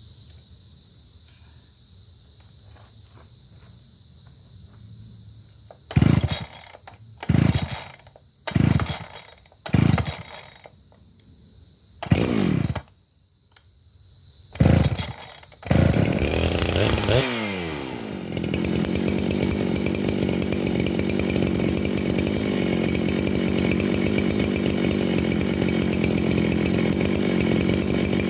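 Craftsman gas chainsaw being pull-started: after a few quiet seconds, about six pulls each fire the engine briefly before it dies away, then it catches about 16 seconds in. It settles and from about 18 seconds runs steadily and loud.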